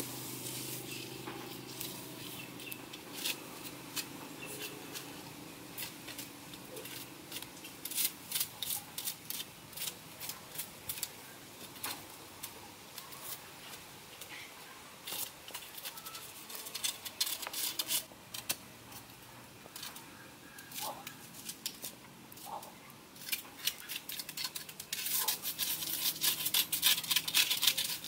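Scattered sharp crackles and clicks from smouldering straw embers being poked with a bamboo stick. Near the end, a quick run of scraping as the charred skin of straw-grilled fish is scraped with a bamboo blade.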